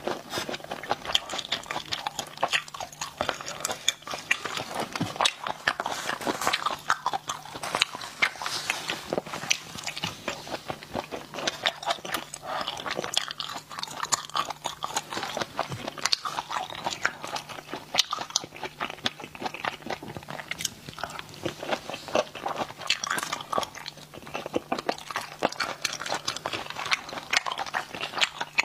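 Close-miked eating of spicy stir-fried snails: wet sucking and chewing of the snail meat, with many quick irregular mouth clicks and smacks.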